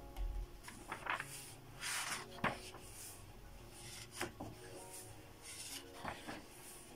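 Pages of a thick Japanese manga magazine printed on thin newsprint being turned by hand: a string of short papery rustles and flips, several in a row, the sharpest about two and a half seconds in.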